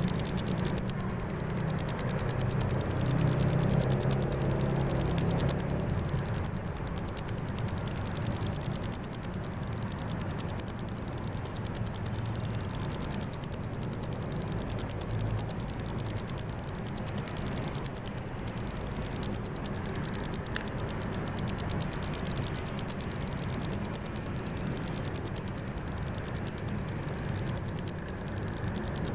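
Insects trilling at night: one unbroken, high, very fast-pulsing trill. A faint low rumble sits under it for the first few seconds.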